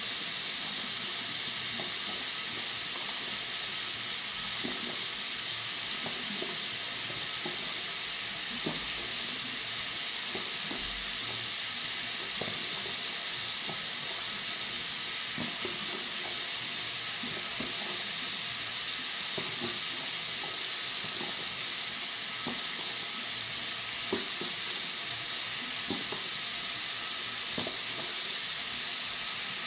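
Water running from a bathroom sink tap: a steady, high-pitched hiss with faint small splashes.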